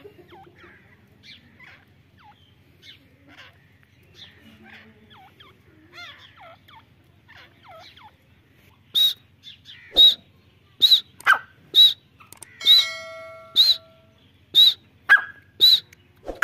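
Caged teetar (francolin) calling: soft, faint calls for the first several seconds, then a run of loud, sharp calls at about one a second through the second half.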